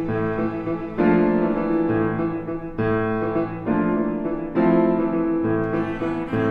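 Steinway grand piano playing a classical passage of chords, each new chord struck about every one to two seconds and left ringing.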